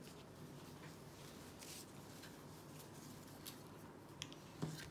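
Faint rustling of torn paper pieces being handled, with a few soft clicks and taps in the second half.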